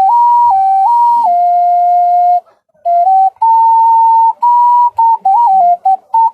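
Five-hole ocarina played using just two finger holes: a short improvised melody stepping among a few notes in a pure, whistle-like tone. A longer held low note is followed by a brief pause, then a run of quick short notes.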